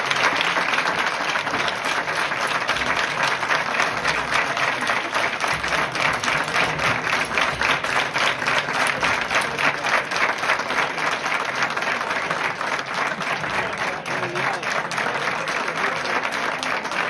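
A large crowd applauding, many hands clapping steadily.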